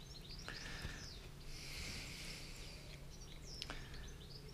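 Faint bird chirps over quiet background noise with a low steady hum.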